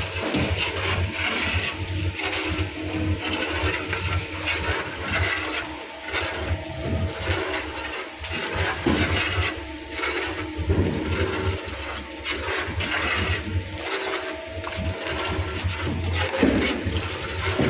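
Bakery spiral dough mixer running, its hook kneading a large batch of soft toast dough in the steel bowl: a steady motor hum under the uneven slapping and squelching of the dough against the bowl.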